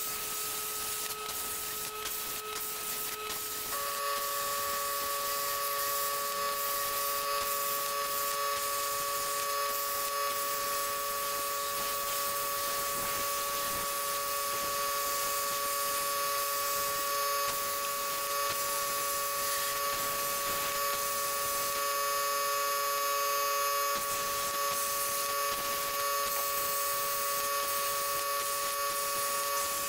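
CNC plasma cutting of 3/16-inch mild steel: a Razorweld 45 A plasma torch on a Langmuir CrossFire Pro table hisses steadily as it cuts. Steady whining tones from the table's drive motors run under the hiss and change pitch about four seconds in as the torch changes course.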